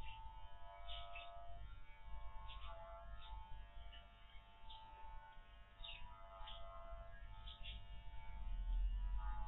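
Electric dog clippers buzzing as they shear through a Spanish water dog's thick curly coat, the hum shifting in pitch now and then.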